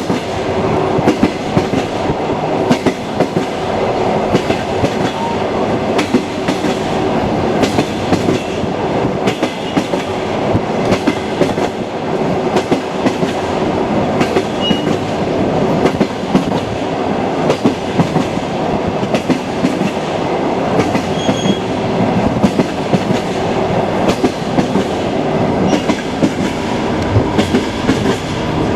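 Train wheels clattering over the rail joints: a steady rolling rumble with frequent sharp clicks.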